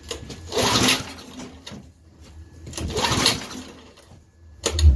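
Recoil pull cord of a Tecumseh 5 hp mower engine yanked twice, each pull a short rattling whir, with the engine turning over but not catching, which the owner puts down to too little fuel. A short heavy thump near the end.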